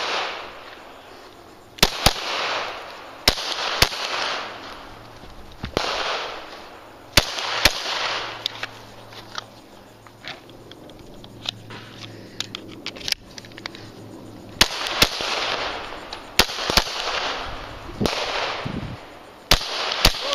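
Glock 17 9mm pistol firing a stage string: about twenty sharp shots, mostly in quick pairs with pauses between them, each followed by a short echo.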